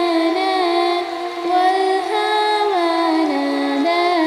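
A female voice singing a naat, an Islamic devotional song, in a slow melody with long held notes that step and bend between pitches.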